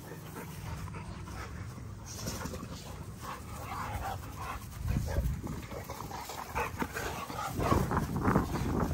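Several American bully dogs play-wrestling together, their breathing and vocal noises coming in irregular bursts, loudest about five seconds in and again near the end.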